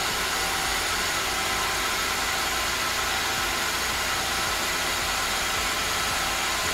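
Mazak CNC lathe running a circle-milling program: the live-tooling spindle turns an end mill as it circles inside a bore without cutting, a steady machine hum.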